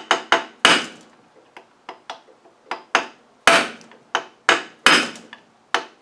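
Hammer blows on steel, about a dozen sharp, uneven strikes, each with a short metallic ring. These are typical of staking the thick-walled collar of a freshly torqued LT77S gearbox shaft nut so that it cannot come loose.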